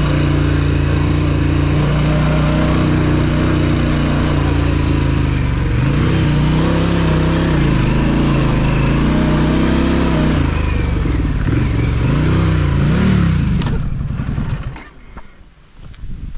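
Adventure motorcycle engine running hard through sand, holding a steady note at first and then rising and falling as the throttle is worked. Near the end there is a knock and the engine cuts out as the bike goes down on its side.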